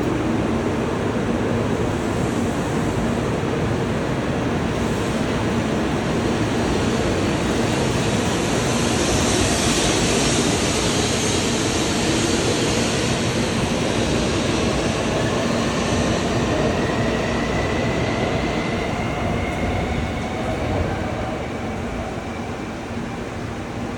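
Shinkansen train running through the station: a steady rush of noise, with a thin whine that rises slowly in pitch in the second half. The sound eases a little near the end.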